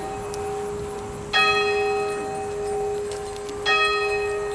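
A bell rung in slow, evenly spaced strokes, struck twice about two seconds apart. Each stroke rings on, with a steady hum sustaining between strikes.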